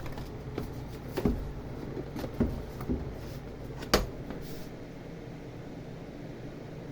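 A few soft knocks followed by one sharper, louder click near the middle, over a low steady hum.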